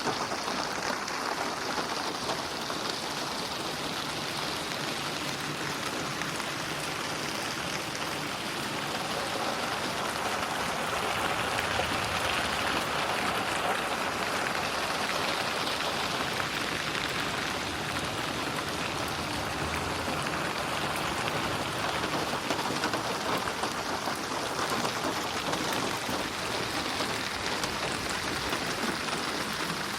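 Steady rainfall, dense patter of raindrops on a surface, swelling a little louder and softer without a break.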